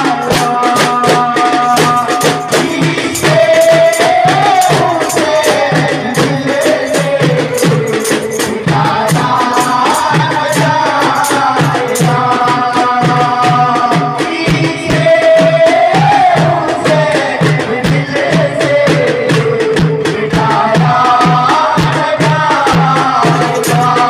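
A devotional song sung into a microphone over a steady beat of hand-held frame drums.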